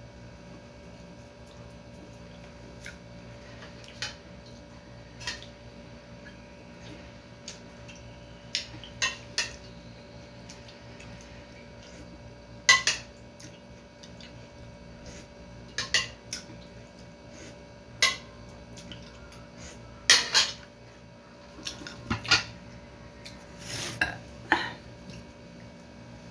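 Cutlery clinking and scraping against a plate and bowl during a meal, in scattered sharp clinks with a cluster near the end, over a faint steady hum.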